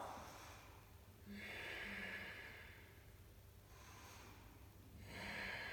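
A woman's slow, deep breathing while holding a yoga pose: soft, long breaths, the clearest in the first half and another near the end.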